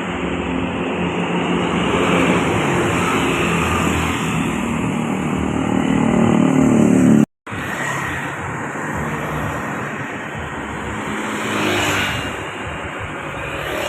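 A bus engine revving and accelerating, its pitch and loudness climbing for about seven seconds before breaking off abruptly. Traffic noise follows, with another vehicle passing close near the end.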